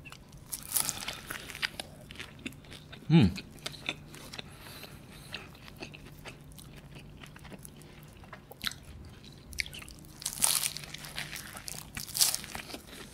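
Close-up eating sounds: flaky puff pastry of a beef Wellington crackling and crunching as it is bitten, torn and chewed, with two louder crunchy bites near the end. A short falling hum from the eater comes about three seconds in.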